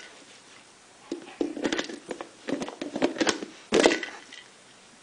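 German shepherd gnawing at a hard plastic Kong Wobbler puzzle toy, working its screw-on halves loose. After a quiet first second comes a run of irregular clacks and crunches of teeth on plastic, lasting about three seconds and loudest about four seconds in.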